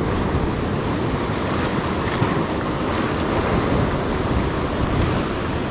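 Ocean surf washing and breaking over shore rocks, a steady rush of water.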